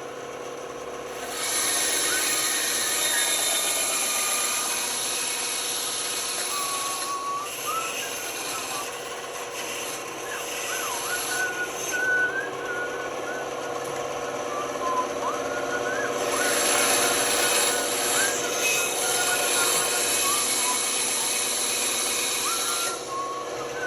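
Band saw running with its blade cutting through wood: a steady motor hum under a loud cutting hiss that starts about a second in and eases off briefly a few times as the piece is fed, with a thin wavering whine above it.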